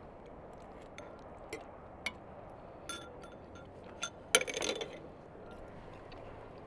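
Forks and spoons clinking against ceramic plates and bowls during a meal: scattered light clicks, with a louder burst of clatter about four and a half seconds in.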